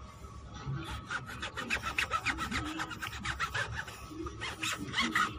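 Cloth rubbed hard and fast back and forth on a rubber tyre sidewall, wiping off spray paint: a quick run of scratchy rubbing strokes, several a second, starting about a second in.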